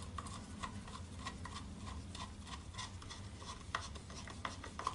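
Faint, irregular small clicks and rubbing, about three a second, as a screwdriver tightens Chicago screws with rubber washers through a Kydex pouch and its belt loop, over a steady low hum.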